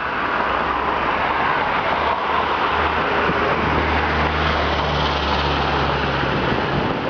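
Road traffic: steady rushing street noise, with a motor vehicle's low engine hum coming in about a third of the way through and holding steady almost to the end.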